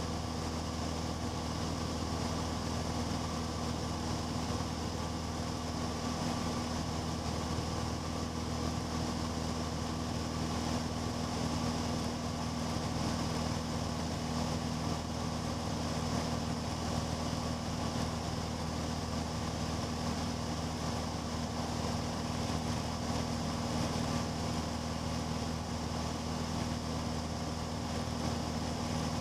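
Cessna 150's four-cylinder Continental O-200 engine and propeller droning steadily: an even low hum under a constant rushing noise, with no change in pitch.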